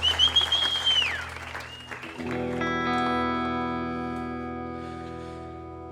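The tail of audience applause with a shrill whistle that falls away, then about two seconds in a sustained electric guitar chord through effects rings out and slowly fades.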